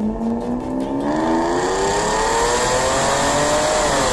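Mercedes-Benz SL600 V12 engine accelerating hard, its pitch climbing steadily, then dropping sharply with an upshift near the end.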